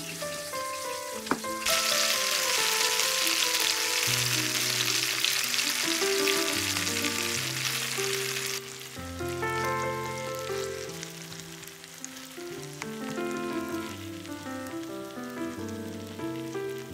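Chicken pieces and sliced onions sizzling in a frying pan, loud from about two seconds in until about halfway, then fainter. A knife clicks once on the wooden cutting board near the start, and background music plays throughout.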